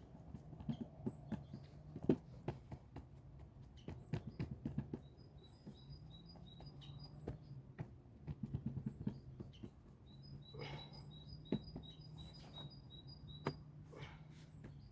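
A bird calling in two runs of short, evenly spaced high notes, one in the middle and one near the end, over scattered sharp clicks and taps and a steady low hum.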